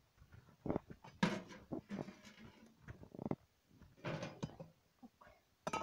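Irregular scrapes and knocks as flatbreads are pried off the inner walls of a clay bread oven with a metal tool and laid on its rim. The sounds come in short, scattered bursts.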